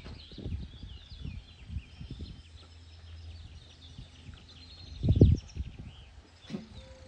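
Small birds chirping and twittering, with irregular low thumps of wind buffeting the microphone; the strongest thump comes about five seconds in.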